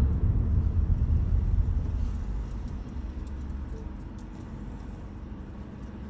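Car cabin road and engine rumble fading over the first two seconds or so as the car slows to a stop, then a quieter steady low hum as it idles.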